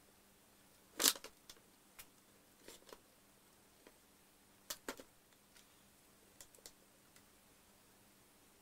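Scattered light clicks and knocks, about a dozen, the loudest about a second in, from a plastic part and a hot-stapler plastic repair tool being handled on a metal workbench. A faint steady hum sits underneath.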